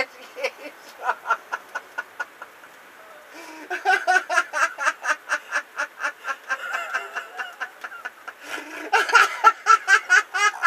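A man laughing hard in rapid ha-ha pulses, in long bouts that grow louder near the end.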